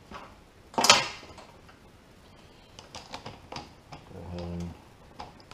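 Hands handling a laptop's plastic screen bezel: a short clatter about a second in, then a run of light plastic clicks, and a short low hum near the end.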